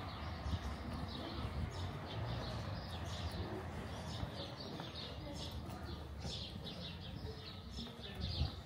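Small birds chirping repeatedly, busier from about three seconds in, over a steady low rumble.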